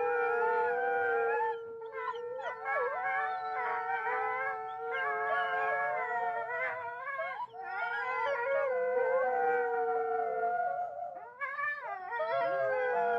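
Eerie horror sound effect of several long howls layered over one another, wavering and gliding in pitch, with brief dips about a second and a half in and again near the end.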